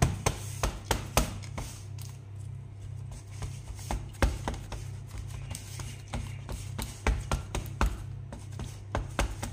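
Irregular light taps and knocks as a gloved hand presses almond-flour crust into a parchment-lined metal pie pan, the pan knocking on the counter, over a steady low hum.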